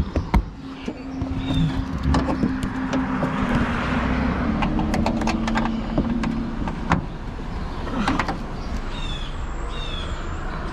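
A car passing by: a steady low hum with road noise that swells and fades. Over it come a few sharp clicks and knocks of hand work on the trunk parts, loudest right at the start, and a few short chirps near the end.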